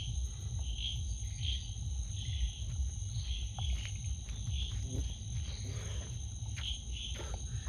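Night-time outdoor ambience: a faint steady high insect drone and scattered short high chirps over a low steady rumble.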